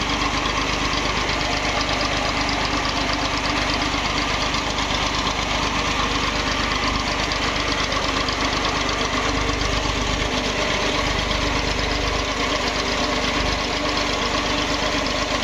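Stationary engine running steadily under load, turning V-belts and pulleys that drive the shaft of a seed-oil expeller.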